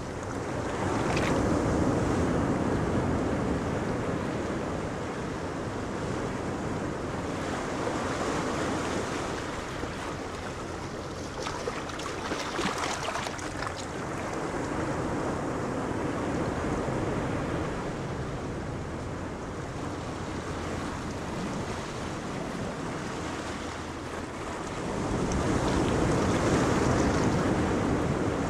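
Wind gusting across the microphone over the wash of sea waves, swelling and easing, loudest about two seconds in and again near the end.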